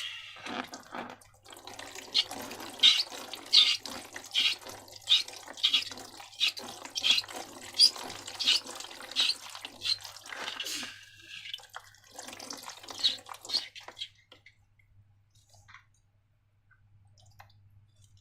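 Sticky slime being mixed and squished: a regular run of wet, clicking squelches, about one and a half a second, that stops about fourteen seconds in.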